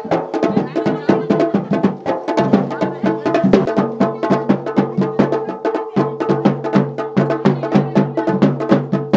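Garhwali dhol-damau dance music: fast, even drum strokes, several a second, over a held low tone that drops in pitch twice.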